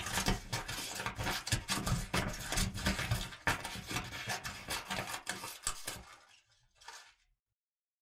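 Scissors snipping in a rapid run of sharp clicks that thins out about six seconds in, with one last short snip about a second later.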